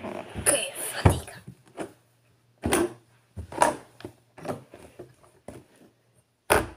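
Hard-shell guitar case being handled: a string of separate bumps and knocks as it is moved about and set down, busiest in the first second.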